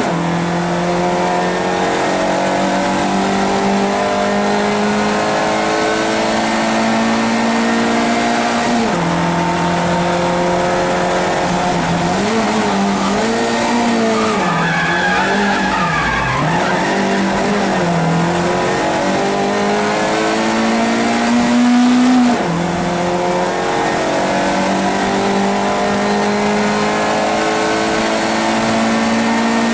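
Small racing car's engine heard from inside the cabin, pulling hard and climbing in pitch, with sharp drops in revs as it shifts up near the start, about nine seconds in and about 22 seconds in. Through a corner in the middle the revs dip and rise several times, with tyre squeal.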